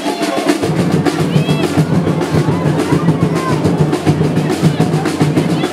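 Drums playing a fast, continuous roll.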